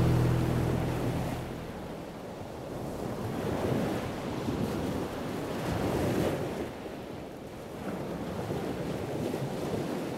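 Sea waves washing in, swelling and falling back every two to three seconds. Background music fades out in the first second or two.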